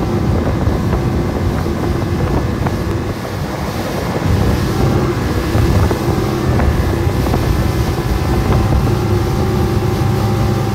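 Outboard motor running steadily at high speed, with wind buffeting the microphone and the wake rushing behind the boat.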